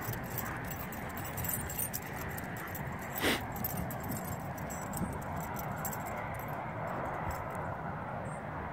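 Two dogs, a yellow Labrador and a black dog, play-wrestling, their collar tags jingling as they scuffle, over a steady background hiss. One short, louder sound stands out about three seconds in.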